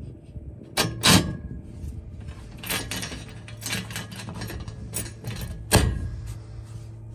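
Sharp metallic clicks and knocks as an aluminium solar racking bracket is handled and shifted on its rail, over a steady low hum. The loudest knocks come about a second in and again near the end.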